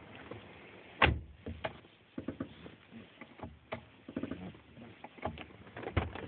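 Clutch pedal assembly of a 2004 Infiniti G35 sedan with a six-speed manual creaking as the pedal is pressed and let up: a run of irregular squeaky creaks and ticks, with a sharp loud click about a second in and another near the end. The creak comes on in warm weather and is cured by spray grease, the sign of a dry, unlubricated part in the clutch linkage.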